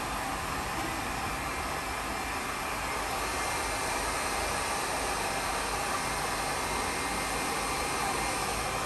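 Handheld hair dryer running steadily, blowing hot air over foil-wrapped hair to speed up the bleach's lift.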